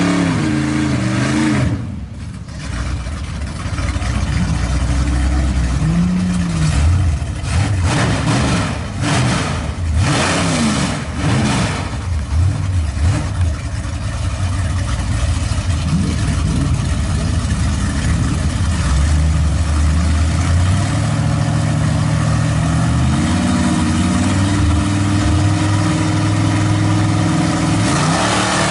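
1958 Ford pickup's engine near the end of a burnout, then idling with repeated throttle blips that rise and fall in pitch, joined by a second old pickup's engine. The engines idle more steadily in the second half, and the revs climb just before the end.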